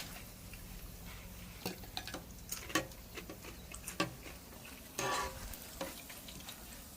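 Dried fish frying in hot oil in an electric pan, a faint steady sizzle, with a few scattered clicks and taps and a slightly louder short rattle about five seconds in.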